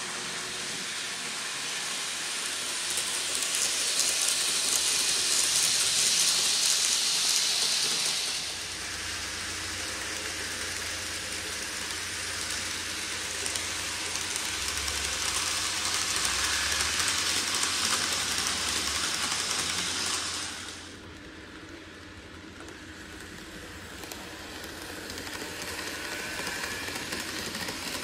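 N-gauge model of a Tobu 500 series Revaty train running on layout track: a steady hissing whir of its motor and wheels on the rails. It is loudest a few seconds in, changes abruptly about eight seconds in, and drops about twenty-one seconds in before slowly rising again near the end.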